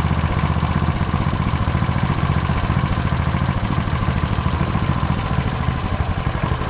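Honda GX160/GX200-type single-cylinder petrol engine running steadily after its carburettor has been serviced, with a fast, even firing beat.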